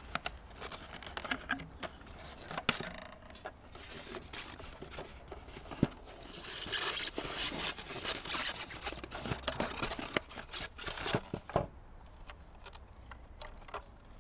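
Unboxing handling noise: a plastic toy fire engine and its wire twist-ties being worked free of a polystyrene packing insert. Scrapes, rustles and a few sharp clicks, with a dense patch of rustling around the middle, then quieter in the last two seconds.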